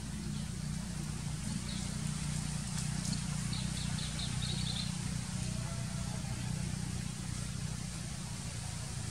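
Outdoor ambience with a steady low rumble. A bird chirps faintly in a quick run of about five short high notes around three and a half seconds in.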